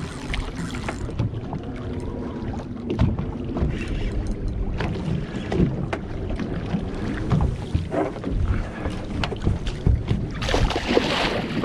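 Wind on the microphone over a steady low rumble of water and boat. About ten seconds in there is a loud splash as a hooked tripletail thrashes at the landing net and gets out of it.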